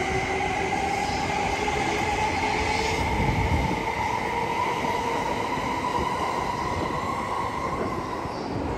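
JR East E261 series Saphir Odoriko electric train pulling out and drawing away: a whine from its drive that rises slowly in pitch as it accelerates, over a steady rumble of wheels on rail.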